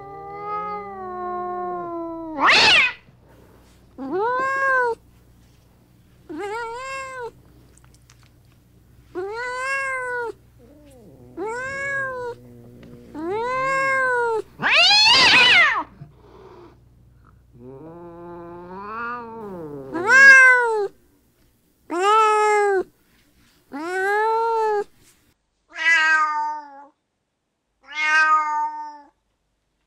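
Domestic cats meowing, a string of about fifteen separate meows one to two seconds apart. Two louder, harsher cries come near 3 and 15 seconds in.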